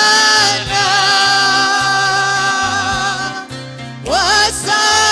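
Swahili gospel worship song: a singer holds a long, wavering note on "Bwana" over instrumental backing with a pulsing bass line, then slides upward into the next line about four seconds in.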